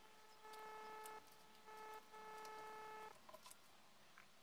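Two faint electronic beeps at the same pitch from a Realme Buds Q wireless earbud's prompt tone, a short one and then one about twice as long, followed by a few small handling clicks.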